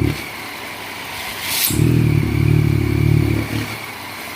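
Yamaha MT-09 three-cylinder engine running at a steady speed through an Akrapovic full-system exhaust with its dB-killer silencer still fitted, loud even so. The note cuts out abruptly just after the start, comes back with a sharp click under two seconds in, and cuts out again about three and a half seconds in.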